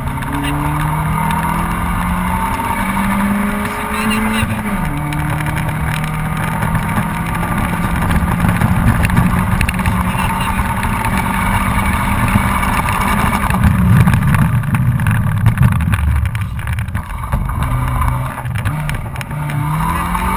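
Honda Civic 1.3's four-cylinder engine running hard under load, heard from inside the cabin, its pitch dropping sharply at a gear change about four seconds in and again near the end. Tyre and road rumble grows louder and rougher in the second half.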